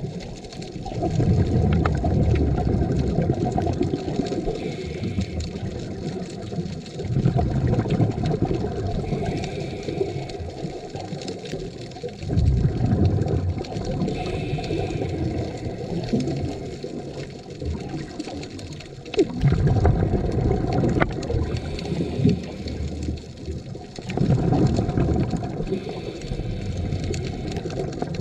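Scuba diver breathing through a regulator underwater: a bubbly rumble of exhaled air five times, about every five to six seconds, with a short, fainter hiss of inhalation between the exhalations.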